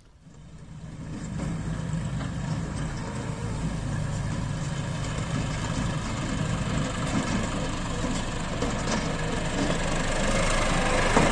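John Deere tractor's diesel engine running steadily, fading in over the first couple of seconds and getting a little louder near the end.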